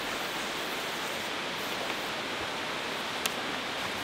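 Steady rushing of a mountain river, with one light click a little over three seconds in.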